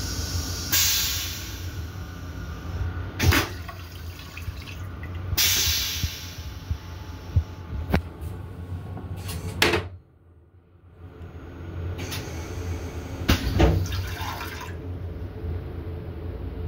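M7 railcar toilet flushing: several spurts of hissing rinse water into the stainless steel bowl, with sharp clicks and clunks, over the steady low rumble of the train.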